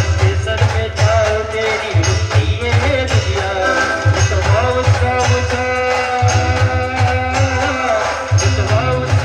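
Live brass band music: horns playing a melody in held notes over a loud, steady low drum beat and percussion.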